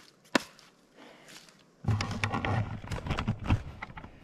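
Two sharp clicks, then from about two seconds in a dense crunching and rustling with a low rumble: ground litter being disturbed close to the microphone while a trap set is worked over.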